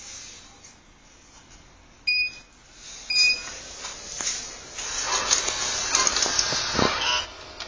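HP DesignJet 130nr wide-format printer beeping twice, then its mechanism running noisily with many clicks and one heavy clunk near the end. This is the printhead carriage jamming at the far left during the start-up checks, with no paper loaded, a fault the owner cannot explain.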